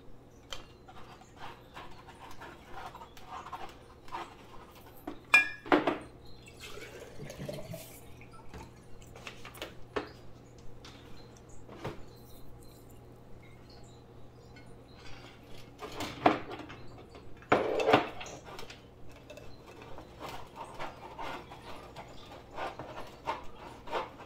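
Glass mason jars, their plastic lids and tubing being handled and set down: scattered light clinks and taps, with a few louder knocks, the loudest about five seconds in and twice near the middle.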